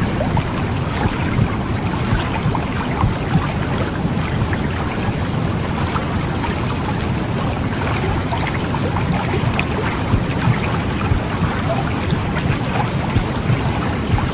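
Womb sound for soothing a baby: a steady, low, rumbling whoosh of noise with faint crackles throughout.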